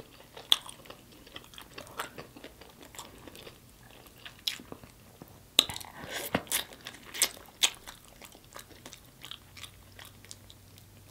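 Close-miked eating sounds: a person biting and chewing sauce-covered rotisserie chicken, with many short wet mouth clicks and smacks. The bites come louder and closer together around the middle.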